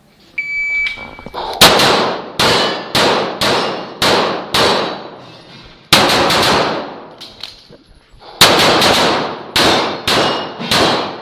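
An electronic shot-timer start beep, then a CZ Shadow 2 9 mm pistol fired about thirteen times in rapid strings, with a pause of a second or two between groups of shots.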